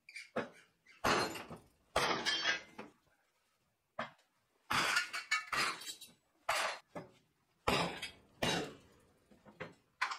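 A length of timber striking a cold 12 mm steel rebar knot clamped in a bench vise, about ten blows at uneven intervals, the steel clattering and ringing briefly after each, knocking the rebar bends down into shape.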